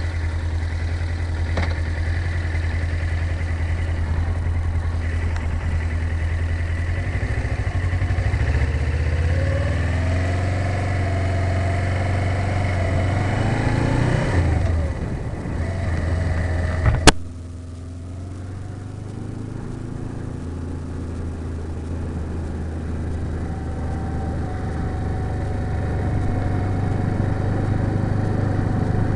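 Motorcycle engine heard from inside the rider's helmet: running low, then accelerating with a steadily rising pitch, and dropping away about halfway through as the bike brakes to a stop. A single sharp click follows shortly after the stop, then the engine runs quietly at low revs.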